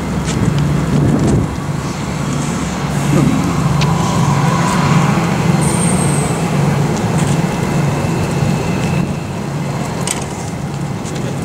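Steady mechanical drone with a constant low hum, with a few scattered clicks and a brief faint high tone about halfway through.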